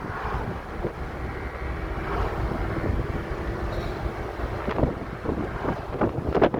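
Road and engine noise inside a moving car, a steady rumble with a faint hum and some wind on the microphone. A few short knocks come near the end.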